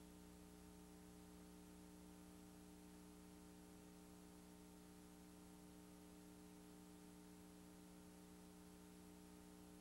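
Near silence: a faint, steady hum with a light hiss beneath it.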